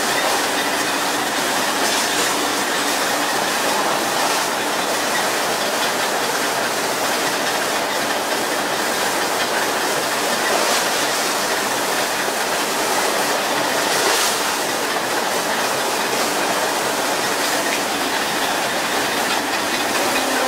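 Steady, rushing hiss of water spraying over a tuna boat's rail and the sea churning along the hull, swelling a little now and then.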